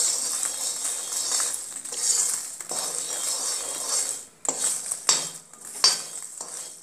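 Metal spatula stirring and scraping puffed lotus seeds (makhana) around a pan as they roast in ghee, a continuous rustling scrape. It pauses briefly after about four seconds, then comes back as a few separate, sharper scrapes.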